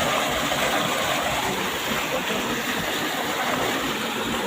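Floodwater of the swollen Kushiyara river rushing steadily, a continuous even roar of moving water.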